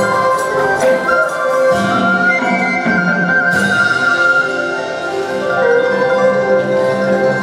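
Traditional Vietnamese ensemble playing live for a water puppet show: a wavering melody line over sustained notes and light percussion strikes.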